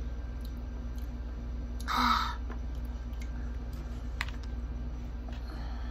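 Small clicks and taps of eating by hand: a fork and fingers handling fried chicken and spaghetti in a cardboard takeout box, with a short rustle about two seconds in. A steady low electrical hum runs underneath.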